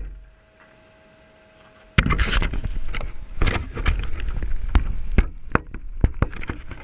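Close handling noise on an RC truck's front-mounted GoPro: a sudden loud knock about two seconds in, then a run of irregular knocks, clicks and scrapes as a hand works at the camera and truck. Before that, only a faint steady tone.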